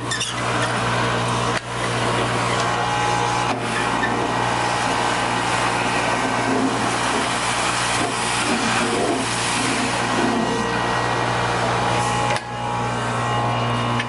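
Industrial vacuum running steadily with a constant rush of air and a low hum as its floor tool picks up spilled Portland cement dust. The sound dips briefly twice, once near the start and once near the end.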